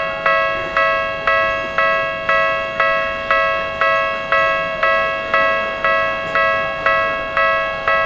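Japanese railway level-crossing warning bell ringing in even strokes, about two a second, each stroke a bright ringing tone that dies away before the next. The barrier is down: the bell warns that a train is about to pass.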